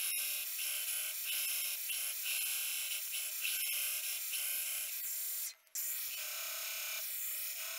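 Belt grinder running with a small brass part pressed against its abrasive belt: a steady grinding hiss, broken once by a brief gap a little past halfway.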